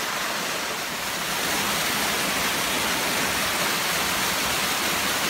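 Small waterfall pouring over rocks: a steady rush of falling water that grows a little louder about a second and a half in.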